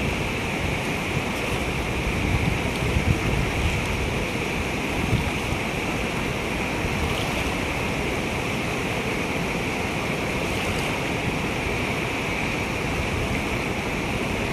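Fast, silty river flowing over a stony bed: a steady rush of water, with wind buffeting the microphone as a low, unsteady rumble.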